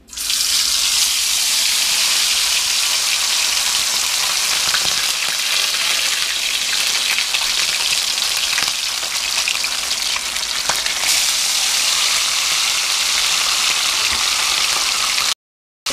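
Whole fish frying in hot oil in a pan: a loud, steady sizzle that starts suddenly as the first fish goes into the oil head first. The sizzle cuts off abruptly just before the end.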